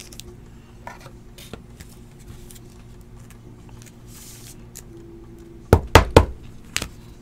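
Trading card being slid into a rigid plastic card holder: faint plastic clicks and rubbing, then a quick run of three loud knocks about six seconds in as the holder is handled on the table. A faint steady hum lies underneath.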